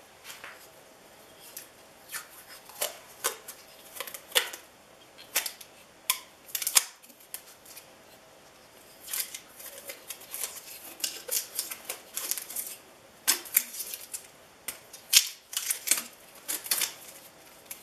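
Black tape being peeled and unwound from a glued wooden hand-plane tote, in irregular runs of short, sharp tearing crackles with a pause about halfway. The tape has been acting as a clamp while the glue cured and is now coming off.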